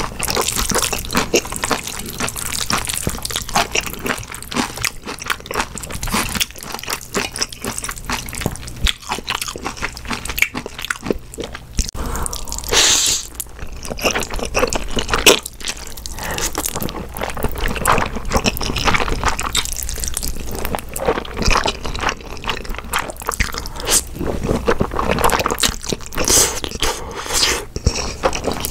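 Close-miked eating of Chapagetti black-bean instant noodles: wet slurping of the noodles and chewing, with many small mouth clicks and smacks. There is one longer slurp about halfway through.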